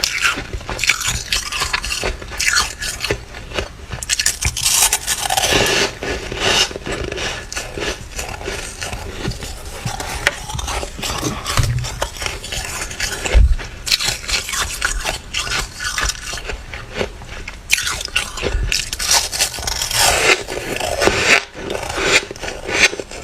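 Flaky, squeaky freezer frost being scraped and crunched between the teeth: a dense run of crackly, scraping crunches.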